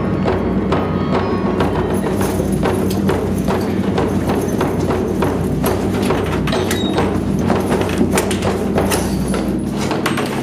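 Background music with held tones and a quick, even beat of hollow knocks like a wood block or clip-clop.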